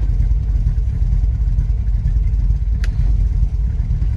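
Jensen Interceptor's 7.2-litre V8 idling with a steady low rumble, with one short click about three seconds in.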